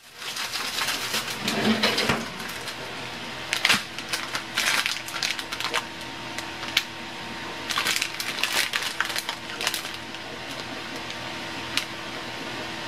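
Crinkling and rustling of a soft plastic noodle package being handled and turned over, in irregular bursts, over a faint steady hum.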